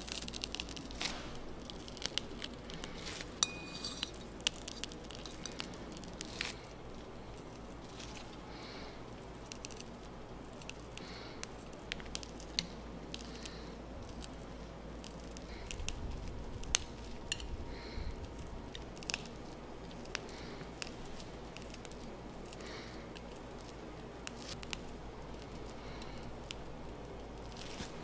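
Soft squishing of whipped cream pressed through a piping bag's metal tip, with many scattered light clicks and taps of the tip and metal flower nail being handled, over a steady low hum.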